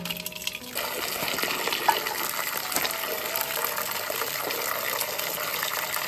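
Water gushing steadily into a container, starting about a second in.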